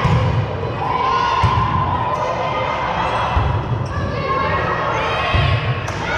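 A volleyball thumping on a gym floor four times, about every two seconds, over the voices and calls of players and spectators.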